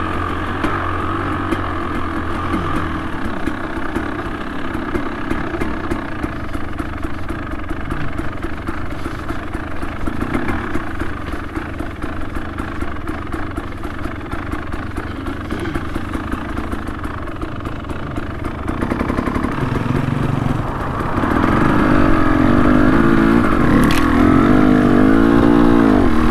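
Trail motorcycle engine running at low revs. It gets louder about three quarters of the way through, and near the end the revs rise and fall several times.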